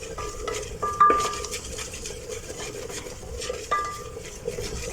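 A utensil stirring a butter-and-flour roux in a pan, scraping steadily, with a few ringing clinks against the pan about a second in and again near four seconds.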